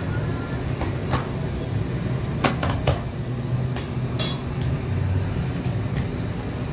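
Feteer dough being folded and patted flat by hand on a worktable: a few sharp knocks and clinks, about four in all, over a steady low hum.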